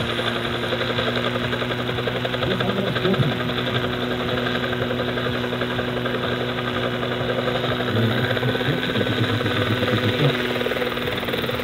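A large electric radio-controlled Bell AH-1F Cobra scale helicopter, with a 3.25 m main rotor, running on the ground with its rotor turning before lift-off. It gives a steady mechanical hum from the electric motor and rotor drive, at an even pitch.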